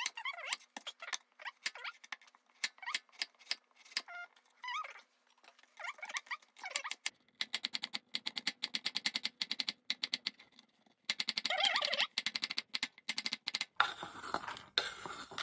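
Chef's knife cutting carrot on a wooden cutting board: scattered single cuts at first, then two runs of fast, even chopping as the carrot is finely diced. Near the end the diced carrot is scraped off the board into a stainless steel pot.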